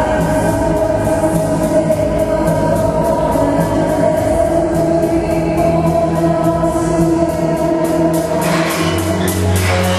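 Live symphonic metal band soundcheck: sustained choir-like chords over a steady beat of cymbal strokes, with a deep bass note swelling in near the end.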